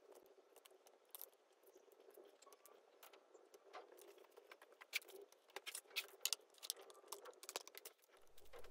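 Close-miked food being handled with chopsticks: a quiet run of light crackles and clicks that grows busier in the middle.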